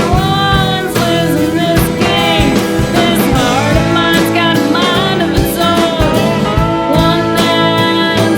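Music: a song with a singing voice over guitar and a beat.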